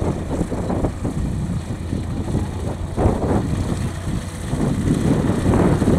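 Piper PA-28 light aircraft's piston engine and propeller running at low taxiing power, a steady low drone.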